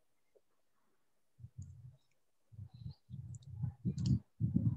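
Faint, irregular low thuds and rumbles that start about a second and a half in, with a few light clicks scattered among them.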